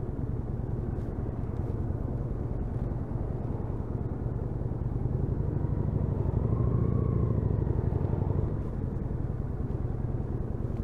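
Kawasaki VN800 Drifter's V-twin engine running on the move, a steady low rumble that swells louder for a few seconds in the middle and then eases back.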